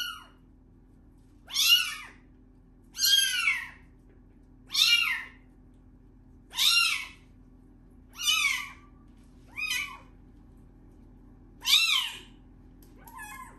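A very young kitten meowing over and over while being lathered in a bath, about one call every one and a half seconds. Each meow is high-pitched and short, rising and then falling in pitch. The calls near the end are fainter.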